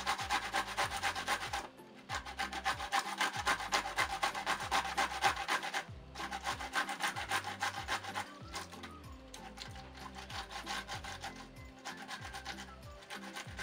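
Pickled cucumber being grated on a hand grater: quick rasping strokes in a steady rhythm, breaking off briefly about two seconds in and again around six seconds, then fainter and more scattered for the last few seconds.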